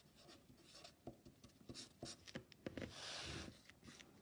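Faint scratching of writing in short strokes, with one longer scratch about three seconds in.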